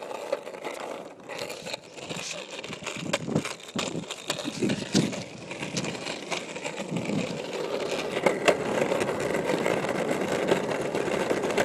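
Homemade wooden longboard rolling down a cracked road: a steady wheel rumble with irregular sharp clicks as the wheels cross the cracks, growing louder toward the end.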